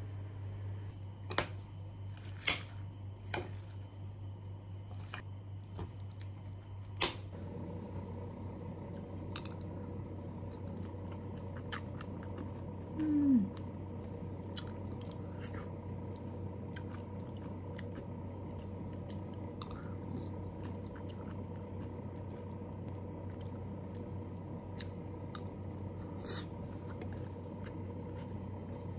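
Metal spoon clinking and scraping against a ceramic bowl as yogurt with granola and strawberries is scooped and stirred: a few sharp clinks in the first seven seconds, then fainter scattered taps. A steady low hum lies underneath, and a brief falling tone a little before halfway is the loudest sound.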